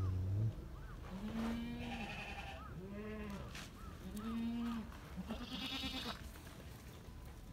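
Farm animals bleating: four bleats about a second apart, each rising and falling in pitch, the last one wavering. A short, deep call sounds right at the start.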